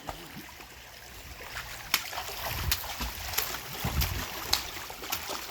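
Swimming pool water splashing as a swimmer kicks at the surface, with a run of short sharp splashes starting about two seconds in.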